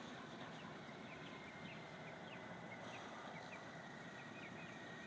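Faint outdoor background noise with quick, high chirps of small birds scattered through it. A faint steady high whine joins about two seconds in.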